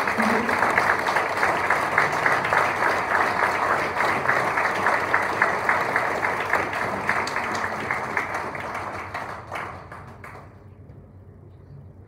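Audience applauding with many hands clapping at once, tapering off and dying away about ten seconds in.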